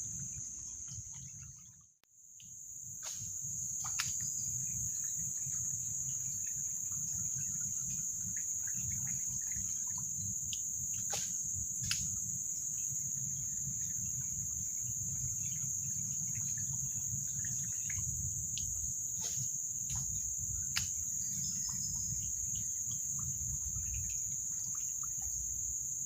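Forest insect chorus: a steady high-pitched drone over a low rumble, with scattered faint clicks. It drops out briefly about two seconds in, then resumes.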